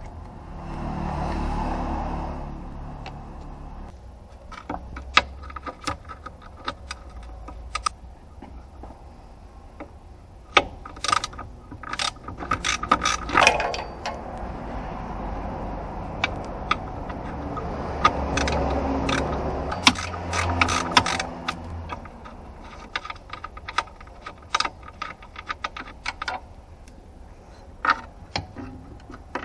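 Hand tools working on metal: irregular ratcheting clicks and metallic clinks and clanks, bunched into busy runs, with two longer swells of rushing noise, one near the start and one about two thirds of the way through.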